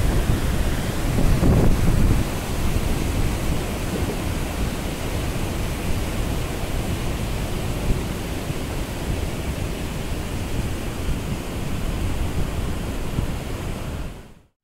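Wind buffeting the microphone: a gusty, rumbling rush that covers everything else. It fades away to silence at the very end.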